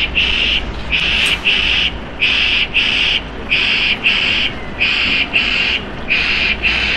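Heavy-haulage transporter's warning alarm sounding a double beep about every 1.3 seconds, over the low, steady running of the truck's diesel engine.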